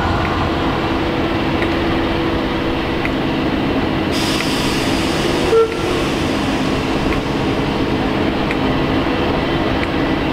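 Railway locomotive running: a steady mechanical rumble with a low hum. There is a burst of hiss about four seconds in and a brief sharp tone just after the middle.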